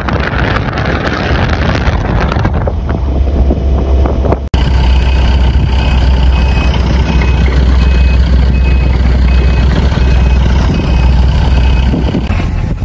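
Wind buffeting the microphone for the first few seconds. After an abrupt cut comes the low rumble of a heavy vehicle engine running, with a high, evenly repeating warning beep, a couple of beeps a second, that stops near the end.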